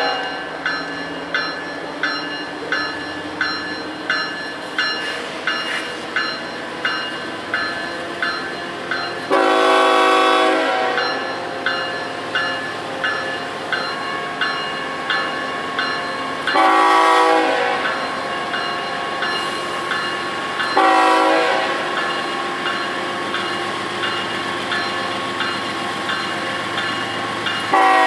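Norfolk Southern GE diesel locomotive's air horn sounding the grade-crossing signal: long, long, short, with another long blast beginning near the end. A bell rings steadily at about two strokes a second in between, over the low rumble of the locomotive and its train rolling closer.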